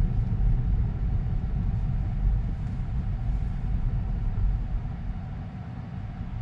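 Low road and tyre rumble inside the cabin of a moving Tesla Model 3 electric car, growing slightly quieter toward the end.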